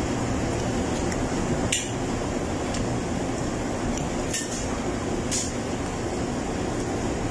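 Steady hum of a restaurant's air conditioning, with four sharp clinks of tableware over it.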